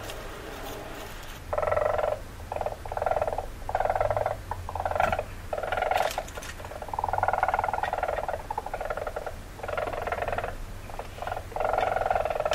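Weasel making rapid trilling calls in a series of bursts, each half a second to a second and a half long, with short gaps between them; the calls begin about a second and a half in.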